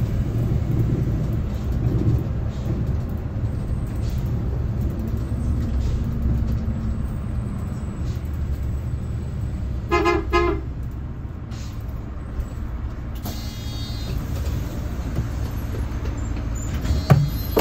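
Low-floor city bus running through traffic, heard from inside as a steady low engine and road rumble. About ten seconds in, a vehicle horn gives two short toots. A thump comes near the end.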